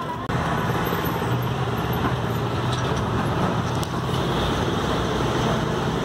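Road traffic with a motor vehicle's engine running close by. It gets louder about a third of a second in and then holds steady.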